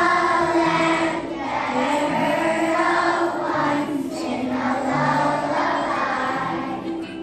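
Children's choir singing together, holding sung notes with short breaks between phrases.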